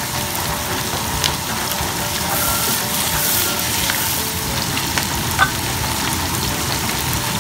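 Chopped onion and red bell pepper sizzling steadily in hot oil in a non-stick wok while a wooden spatula stirs them, with a few light clicks and scrapes of the spatula against the pan.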